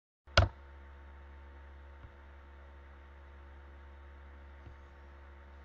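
A sharp pop as the sound cuts in from dead silence, then a steady low electrical hum with hiss from the recording, broken by two faint clicks about two and four and a half seconds in.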